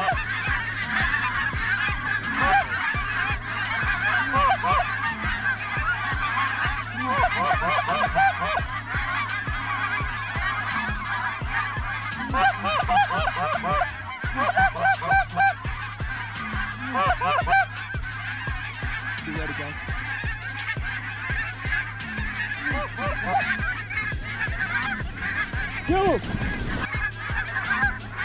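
A large flock of lesser geese calling in flight: many overlapping short, high honks form a continuous chorus, with a few louder, nearer calls near the end.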